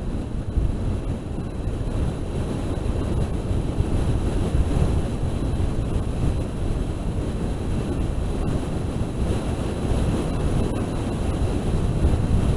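Wind rushing and buffeting over the onboard camera microphone of a low-flying FPV radio-controlled aircraft, a steady gusty roar heaviest in the low end, with faint steady high-pitched tones above it.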